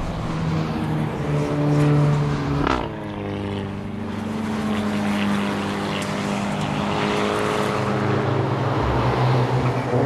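Car engine pulling under load, with a sharp gear change about three seconds in, then a steady note that climbs slowly in pitch as it accelerates.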